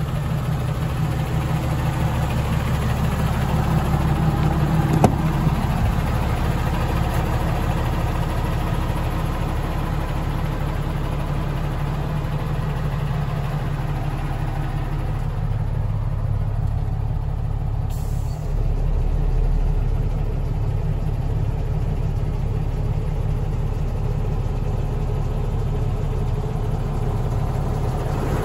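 A 2020 Freightliner M2 106 truck's engine idling steadily, with one sharp click about five seconds in.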